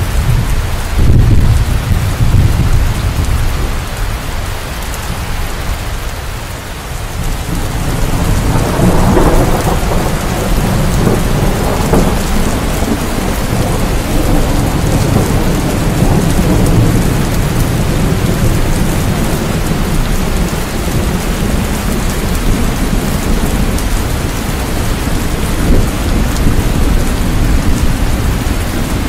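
Heavy monsoon rain falling steadily on grass, mud and puddles, with thunder rumbling: a low rumble about a second in, then a longer, louder one building from about eight seconds that carries on through the rest.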